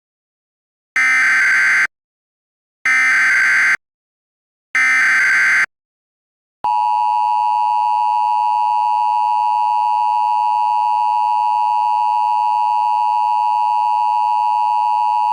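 Emergency Alert System tones: three screeching SAME digital header bursts, each about a second long with short silences between, then the steady two-tone EAS attention signal, which starts about six and a half seconds in.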